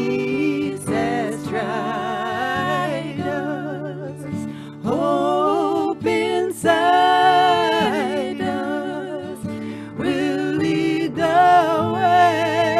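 Singing voices performing a slow song, holding long notes with vibrato, over a soft, steady accompaniment, with short breaks between phrases.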